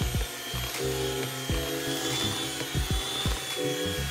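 Background music with a bass beat, over the steady high whine of an electric mixer beating cake batter.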